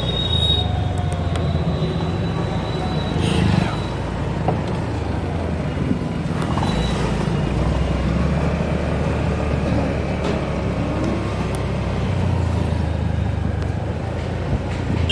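Steady rumble of road traffic and a vehicle engine heard while riding through a busy town street, with a few brief high tones from passing vehicles.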